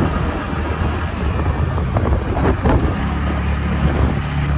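Wind buffeting the microphone on a moving motor scooter, with the scooter's engine running underneath; about three seconds in, a steady low engine drone comes up.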